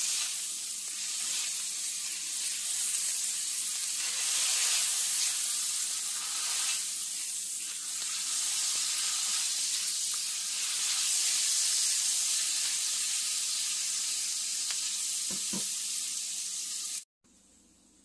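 Chopped and pressed garlic sizzling in hot oil in a cast-iron skillet, stirred with a silicone spatula as it toasts toward brown. The steady sizzle cuts off suddenly about a second before the end.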